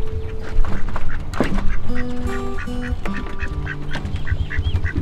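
Mallard ducks quacking in a run of short calls, a few a second, mostly in the second half, with background music underneath and a low, uneven rumble.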